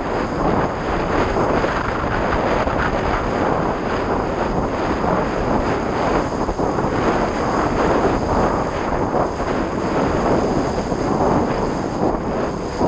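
Steady rushing wind noise buffeting the microphone of a mast-top camera on a windsurfer under sail, mixed with the hiss of the board and spray cutting through the water.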